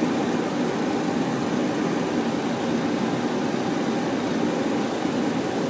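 Steady flight-deck noise of a Boeing 737-800 on final approach: an even rushing hum of airflow and engines, with nothing standing out above it.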